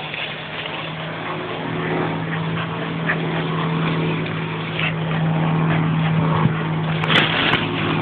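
A steady engine drone from an unseen motor, holding one pitch, with a brief noisy rustle about seven seconds in.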